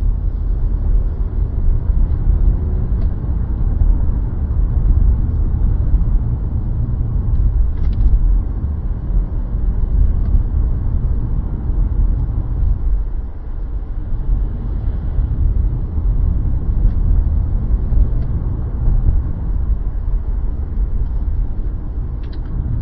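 A car driving along, heard from inside the cabin: a steady low rumble of engine and road noise, easing briefly a little past halfway.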